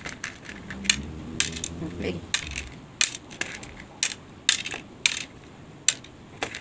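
Small coloured craft pebbles clicking against plastic dishes as they are picked up and dropped, about a dozen sharp, irregularly spaced clicks.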